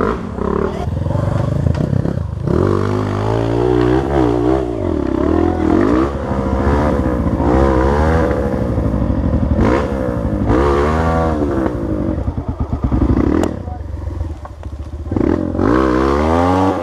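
Honda CRF 250F dirt bike's single-cylinder four-stroke engine revving up and down over and over, its pitch rising and falling every second or so.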